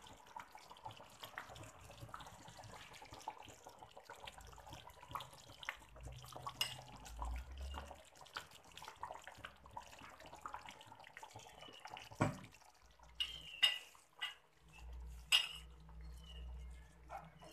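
Wooden spatula stirring a thick fish curry in an aluminium wok, then the curry simmering with many small bubbling pops. A few sharp knocks and clicks of utensil on wok come in the second half.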